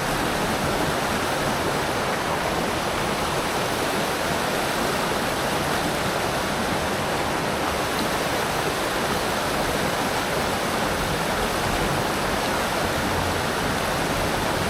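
Small river running over rocks: a steady, even rush of flowing water.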